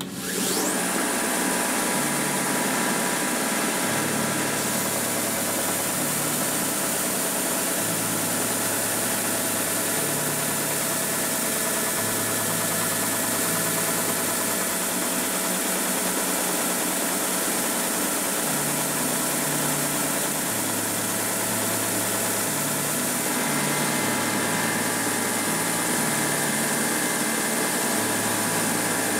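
Hegner belt sander running with its dust extraction, starting up with a high whine that climbs to speed in the first second, then running steadily as a clamped block of wood samples is pressed against the belt and sanded.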